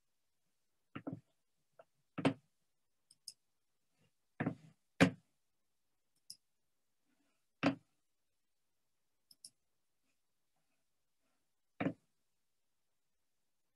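Scattered short clicks and knocks at irregular intervals, about ten in all, with dead silence between them. The loudest knock comes about five seconds in.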